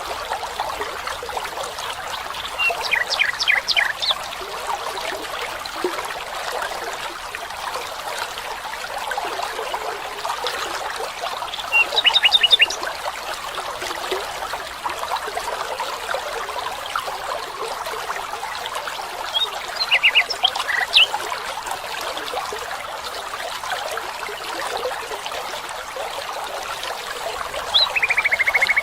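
Water trickling and running steadily, like a small forest stream. Over it an animal calls four times, each a short burst of rapid, high-pitched notes, roughly every eight seconds.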